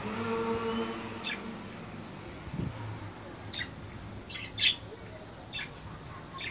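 Caged budgerigars giving short, sharp chirps, about six scattered calls, the loudest a little past the middle. A steady low-pitched tone sounds in the first second.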